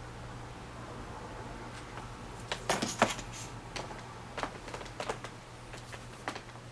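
Small plastic makeup items being handled: a cluster of sharp clicks and taps about two and a half seconds in, then a few scattered single clicks, over a low steady hum.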